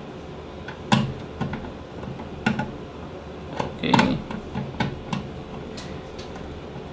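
Scattered clicks and light knocks of hands handling small hardware on the NVR's metal case, the strongest about one, two and a half and four seconds in.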